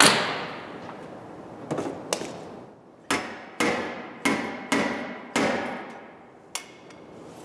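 Spotter dent puller on a car's steel front wing: a loud crackling zap as the tip is spot-welded to the panel, then about eight sharp knocks from the slide hammer, each ringing briefly, pulling the dent out of the wing.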